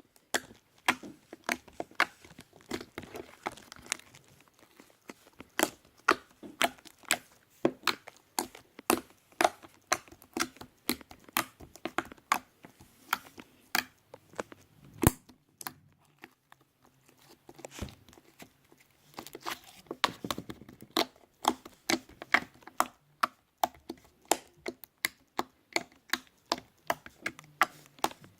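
Creamy, fluffy slime being worked by hand, giving a run of sharp wet pops and clicks, several a second. There is a short lull a little past halfway, then the popping picks up again.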